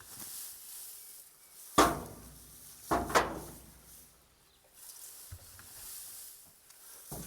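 Two sharp thuds about a second apart, each with a brief ringing tail, then a smaller thud near the end, over faint hiss.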